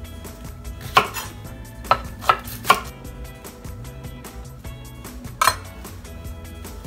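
Chef's knife slicing red onion and knocking on a wooden cutting board: five sharp knocks, one about a second in, three in quick succession between two and three seconds, and a last one about five and a half seconds in.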